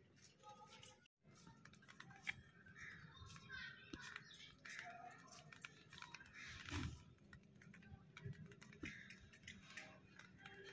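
Near silence: faint room tone with scattered small clicks and taps and faint, distant voices.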